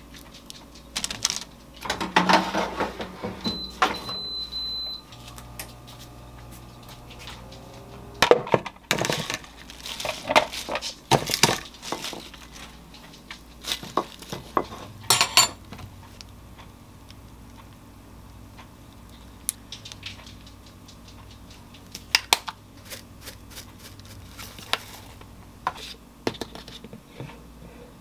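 Kitchen handling sounds: plates and dishes clinking and knocking, with metal tongs on a plate. A short high electronic beep about four seconds in, and a low steady hum for a few seconds after it.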